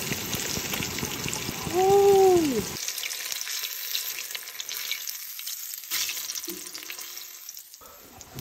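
Walleye fillets deep-frying in hot oil in a stainless steel pan: a dense crackling sizzle that thins and fades as the pieces are lifted out with tongs. About two seconds in there is a short tone that rises and falls, and near the end a few light clicks.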